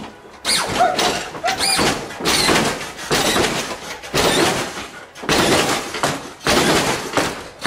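Lowrider hydraulics on a 1993 Cadillac Fleetwood, a single pump to the nose, hopping the front end: repeated slams and rattles of the car coming down on its suspension, about once a second.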